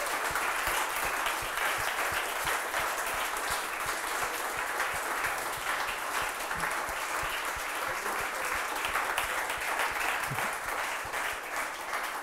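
An audience applauding, many hands clapping steadily, thinning slightly near the end.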